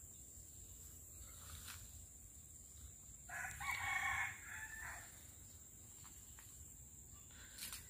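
A rooster crowing once, about three seconds in, a single crow lasting under two seconds.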